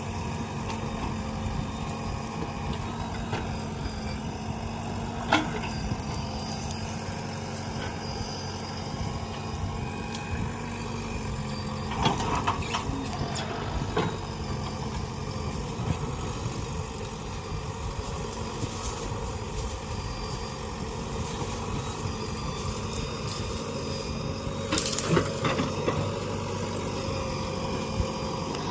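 JCB 3DX backhoe loader's diesel engine running steadily, with a few short sharp knocks and clanks here and there.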